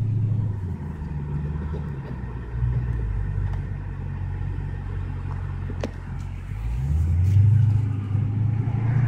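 Dodge Challenger SRT 392's 6.4-litre HEMI V8 running at low revs at walking-to-town speed, heard from inside the cabin. The engine note rises about seven seconds in as the car picks up speed.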